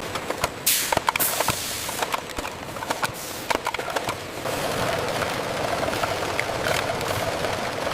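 Factory processing-line machinery: a run of sharp clicks and clacks with two loud bursts of hiss in the first half, then a steadier mechanical whir with scattered knocks.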